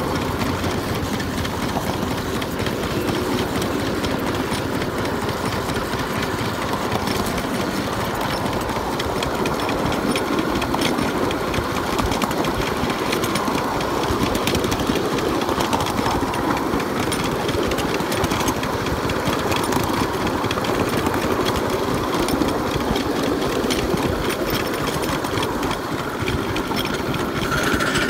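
Miniature live steam locomotive running along the track, its exhaust chuffing in a fast, steady beat with the rattle of the wheels on the rails. A higher hiss comes in near the end.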